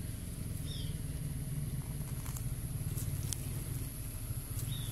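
Steady low rumble of an idling car engine under a constant high-pitched whine, with a few faint clicks and two short falling chirps.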